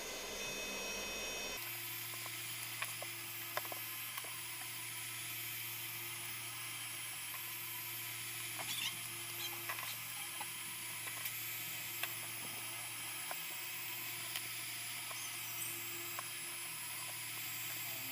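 Steady hiss with a low hum, broken by a scattered series of faint short clicks.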